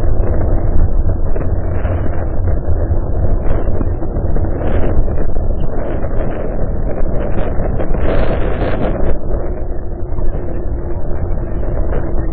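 Wind buffeting the microphone with road noise while riding a bike: a steady, loud rumble with a brief louder surge about eight seconds in.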